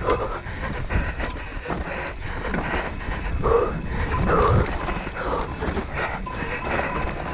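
Enduro mountain bike descending a rough dirt forest trail at race speed: the bike rattles and knocks over roots and ruts and the tyres scrabble on loose ground, with the rider's hard breathing.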